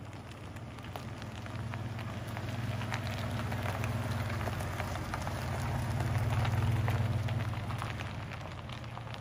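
A vehicle engine running with a low steady hum, under a dense fine crackling. Both grow louder to a peak about two-thirds of the way in, then ease off.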